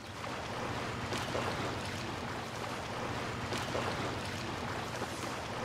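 Steady wash of sea waves on a beach.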